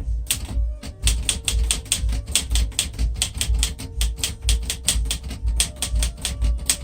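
Underwood 315 manual typewriter being typed on steadily: rapid typebar strikes, several a second, with a short pause about a second in.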